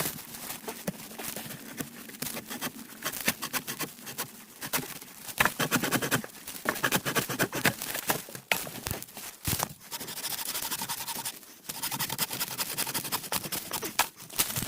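Wood being worked by hand: irregular scraping, scratching and tearing sounds as a stick is shaped into a tool handle.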